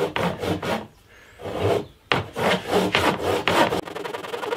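Small brass-backed hand saw cutting through the end of a bound rosewood fretboard in repeated back-and-forth strokes, with two brief pauses, about one and two seconds in. Near the end the strokes turn quicker and lighter.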